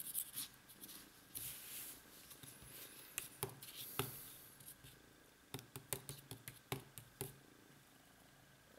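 Marker scratching on paper and paper rustling, then a scatter of light taps and clicks as a tabby cat walks across the sheet.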